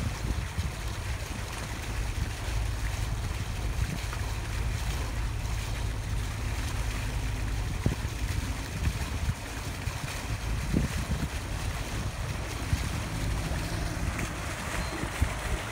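A boat underway: wind buffeting the microphone over the rush of water along the hull, with a steady low rumble underneath.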